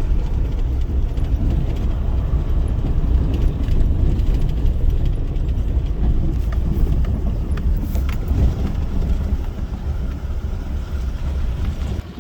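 A vehicle driving along: steady, loud low rumble of engine and road noise, starting and stopping abruptly.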